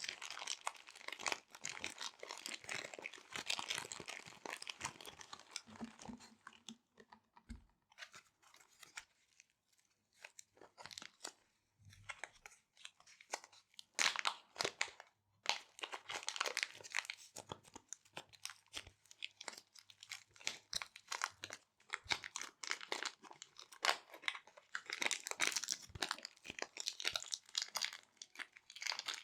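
Small resealable plastic bags being crinkled and handled: dense, irregular crackling, thinning to sparse crackles for a few seconds about a quarter of the way in before picking up again.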